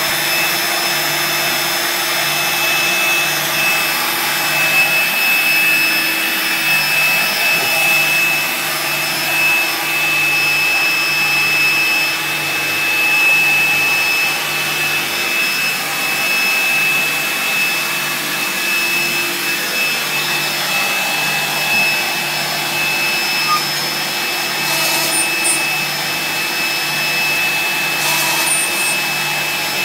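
CNC router spindle running with a steady high whine while milling a wooden sheet, together with the dust-extraction vacuum drawing through the hose at the dust shoe.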